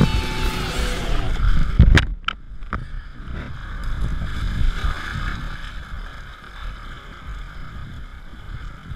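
Background music stopping about a second in, then whitewater rushing past a kayak, with a few sharp paddle splashes about two seconds in and a low rumble of water buffeting the GoPro camera.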